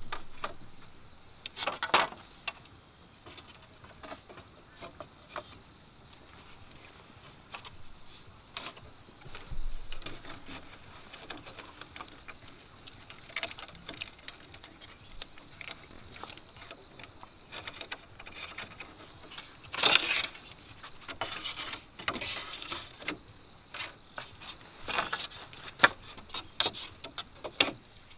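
Bamboo poles being handled and lashed together with cord: scattered knocks and clatters of hollow bamboo, with rustling and the rub of cord pulled tight. A faint steady high tone sits behind it.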